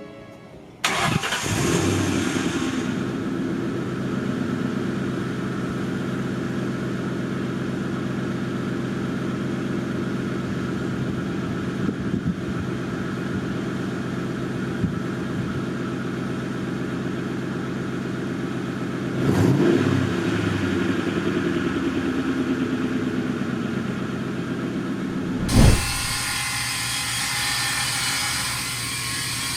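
Ford Mustang GT's V8 engine starting about a second in and idling steadily through its exhaust. It gives a short rev about two-thirds of the way through and a quick sharp blip near the end.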